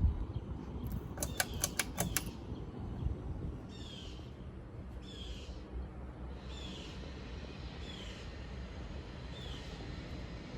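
A quick run of sharp clicks about a second in, then a bird calling five times, each a short downward-slurred note about a second and a half apart, over a low steady rumble.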